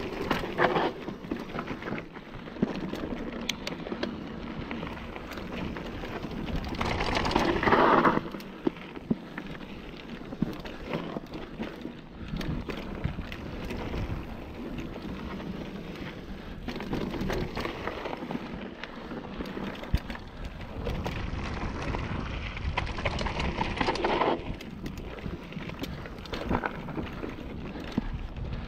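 Kona Process mountain bike running down a dirt singletrack: tyres rumbling and crunching over the dirt and stones, with the bike clattering over bumps in many short knocks. The noise swells louder about seven seconds in and again past twenty seconds.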